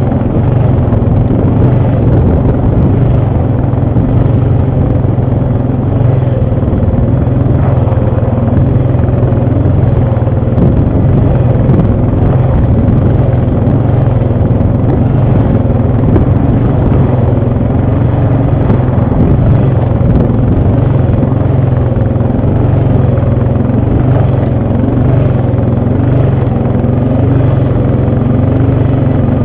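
ATV engine running as the quad is ridden, loud and steady, its pitch wavering up and down with the throttle.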